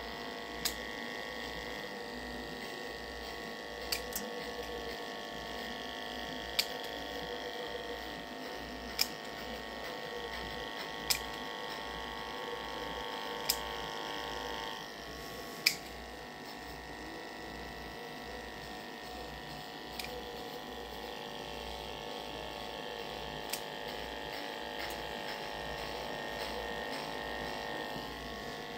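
Cordless electric animal clippers buzzing steadily as they shave the fur from a dog's abdomen in spay preparation, with a sharp click every two to three seconds. About halfway through, the buzz drops a little as a higher tone in it stops.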